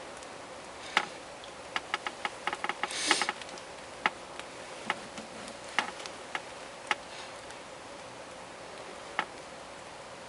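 A series of short, sharp clicks and ticks at irregular spacing, bunched together for about a second near the start, then scattered singly, over a steady faint hiss, with a brief rustling hiss in the middle of the cluster.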